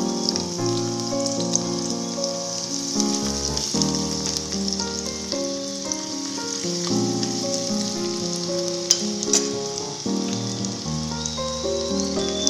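Chopped garlic sizzling steadily in hot oil in an iron kadhai, over background music.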